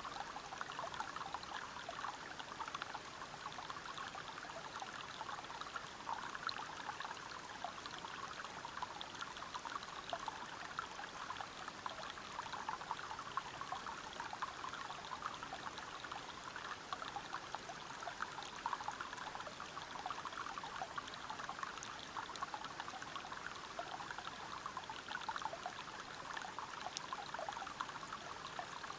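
Stream water flowing and splashing over rocks at a small waterfall: a steady rushing with many small droplet splashes, even throughout.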